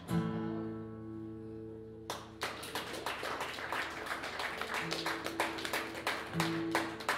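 Acoustic guitar's final chord of the song struck and left ringing, then audience applause breaking out about two seconds in while the chord fades underneath.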